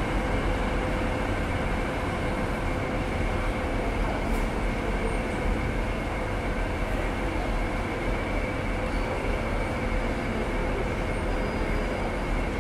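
Steady rumble of a train running along the rails, recorded as background ambience, with a faint steady hum running through it.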